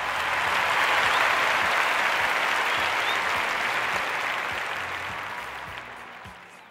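Audience applause that swells in at the start and fades out gradually toward the end.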